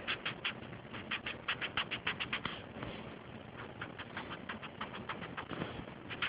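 Felt-tip marker drawing on paper: quick, short scratchy strokes, about five or six a second, coming in runs with a brief lull midway.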